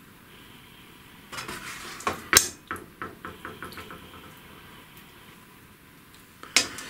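Serving spoon clinking and scraping against a pan and a ceramic plate as curry is spooned onto the plate, with a few sharp knocks, the loudest about two and a half seconds in and another near the end.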